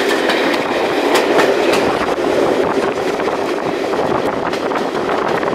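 Heritage railway carriage running along the line, heard at an open window: a steady rumble and rush of wheels on the rails with a running patter of clicks.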